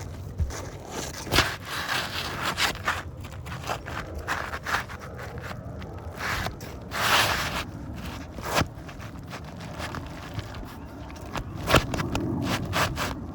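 Irregular scraping, rustling and knocking of asphalt shingles being worked loose and handled during a roof shingle repair, with a longer scrape about seven seconds in and a few sharper knocks.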